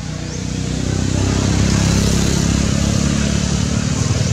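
A motor vehicle engine running, growing louder over the first two seconds and then holding steady as a low hum.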